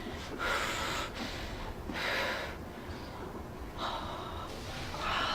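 A person breathing in and out, four audible breaths in about five seconds.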